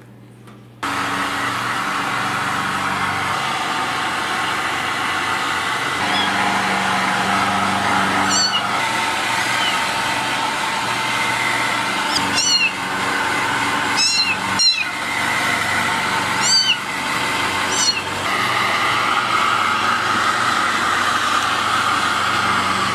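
A hand-held hair dryer switches on about a second in and runs steadily, blowing air. A kitten meows several times over the noise, short high-pitched cries in the middle stretch.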